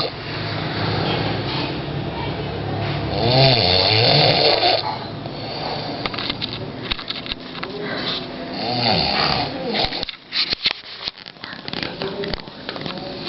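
Loud snoring in long rasping breaths. The strongest snore comes about three and a half seconds in and another near nine seconds, with crackling clicks in the second half.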